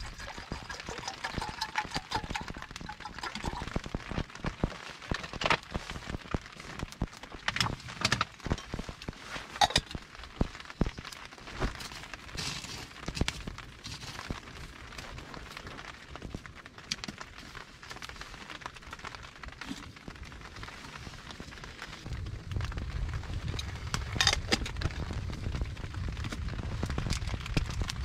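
Wood campfire crackling, with irregular sharp pops scattered through. About three-quarters of the way in, a low rumble comes in under the crackle.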